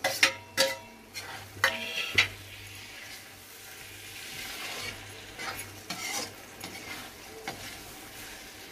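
Paneer cubes going into a metal kadai of capsicum masala, with a few sharp clanks in the first two seconds, then a metal spatula stirring and scraping against the pan over a steady sizzle.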